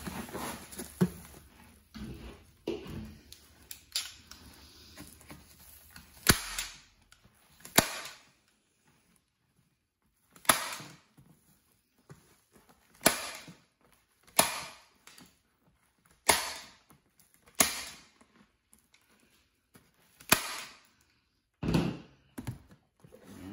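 A hand stapler snapping staples into the foil-faced flap along the seam of a fiberglass duct board duct, with about eight sharp snaps spaced one to three seconds apart.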